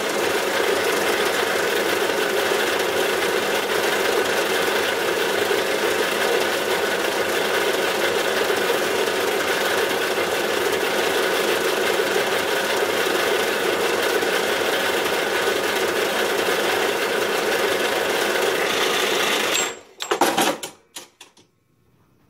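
Horizontal metal-cutting bandsaw running and cutting through a cast iron bar, with a steady, even rasp. It stops abruptly about twenty seconds in, followed by a few clunks.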